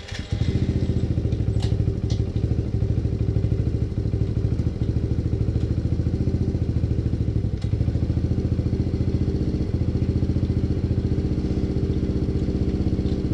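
Dirt bike engine idling steadily at one even pitch, with a few faint clicks.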